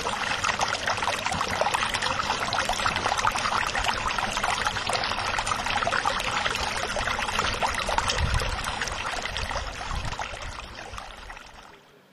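Water splashing and trickling: a dense hiss full of small crackles that fades out over the last two seconds.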